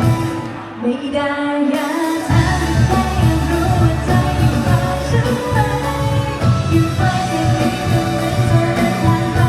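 Live band playing a Thai pop-rock song with a singer; the bass and drums fall away for about two seconds near the start, then the full band comes back in.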